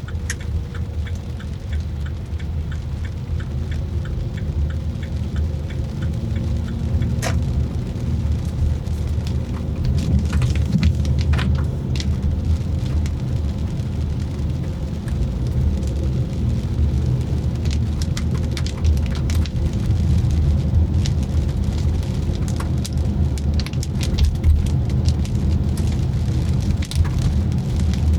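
Rain falling on a moving car, with scattered sharp drop clicks over a steady low rumble from the car on the road.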